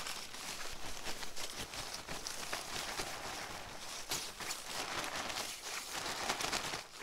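Sleeping bags rustling and swishing with many small crinkles as one is worked inside the other to layer them.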